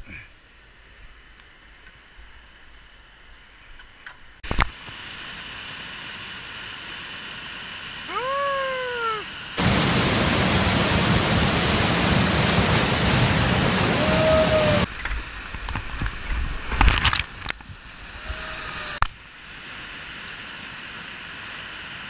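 Rushing white water of a waterfall, a steady noisy roar that jumps abruptly much louder about ten seconds in and drops back about five seconds later as a kayak goes over the falls. A few short high calls rise and fall in pitch over it.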